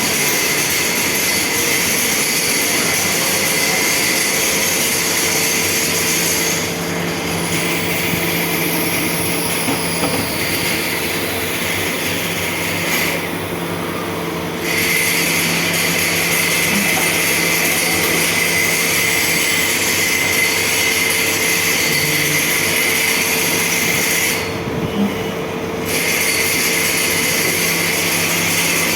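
CNC lathe running while machining a stainless steel ring: a steady hum with a loud high hiss from the cut. The hiss drops away briefly three times, about 7 seconds in, around 13 to 14 seconds, and around 25 seconds.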